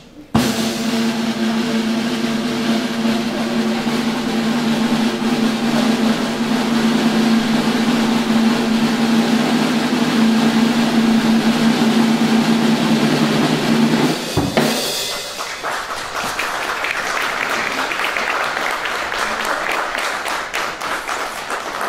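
A long drum roll on a drum kit, starting suddenly and growing a little louder, ends in a final crash about fourteen seconds in. Applause follows.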